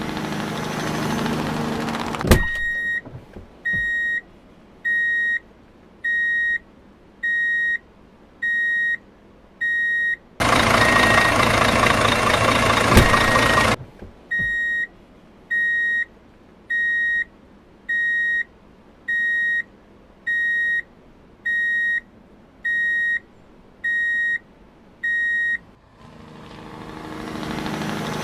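Vehicle reversing alarm: a single high beep about once a second, broken near the middle by a few seconds of loud rushing engine noise. A running engine is heard at the start and again near the end, with a sharp click just before the beeping begins.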